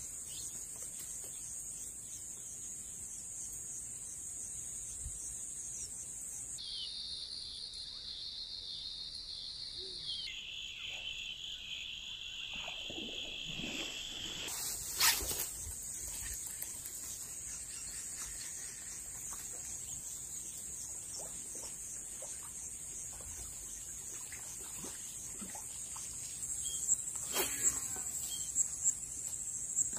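A steady, high-pitched insect chorus. A single sharp click comes about halfway through, and a run of quick clicks comes near the end.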